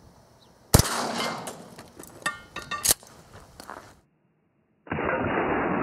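A 12-gauge shotgun fires a golf-ball slug: one sharp, loud report about three-quarters of a second in, fading out over the next second. A few clicks and a second sharp crack follow about two seconds later. The sound then cuts out, and a dull steady rushing noise begins near the end.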